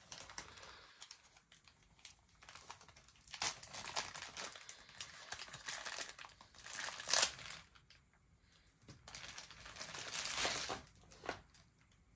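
Thin clear plastic wrapping crinkling and rustling as hands pull it off a coiled speaker cable, in irregular bursts with a sharp loud crackle about seven seconds in and a brief lull just after.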